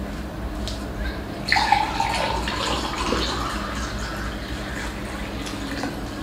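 Wet eating sounds of rice and fried chicken being mixed and scooped by hand off a banana leaf, over a steady low hum, with a louder sound with a falling pitch about a second and a half in.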